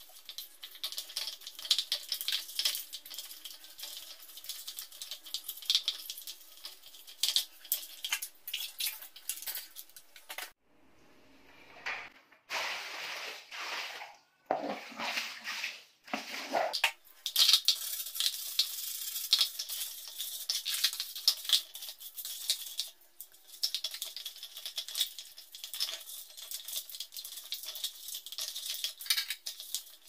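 Small brush scrubbing caked grime off the plastic pulsator of a Sharp washing machine: quick, uneven scratching strokes on hard plastic. Near the middle the scratching stops for several seconds, and a few louder rushing bursts take its place.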